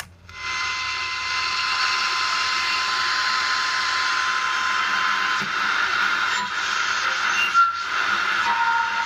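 Blaupunkt Hamburg vintage AM car radio switched on with a click, its speaker then giving a steady static hiss with thin whistles. From a little past halfway the whistles shift in pitch as the tuning knob is turned between stations.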